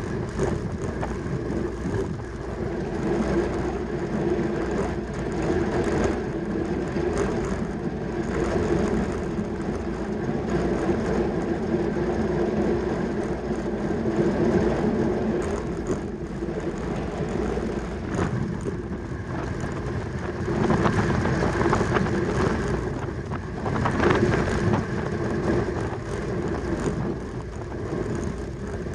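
Track bicycle at racing speed: a steady whir of the chain and tyres on the track, mixed with wind noise, rising and falling slightly.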